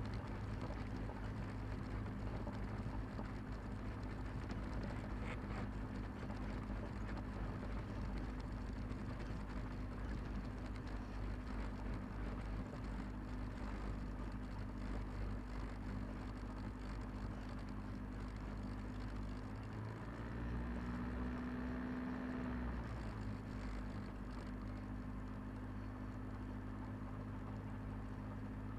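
Cessna 172's diesel aircraft engine running steadily at low power, heard from inside the cockpit as an even drone. Its tone shifts for a few seconds about twenty seconds in, then settles back.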